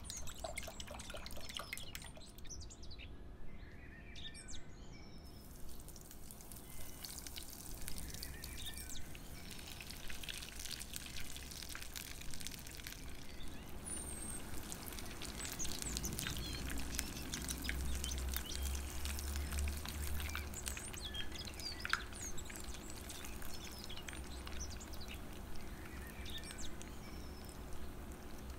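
Hot oil sizzling and crackling in a pot as breaded egg bread balls deep-fry, with a low hum that grows stronger about halfway through.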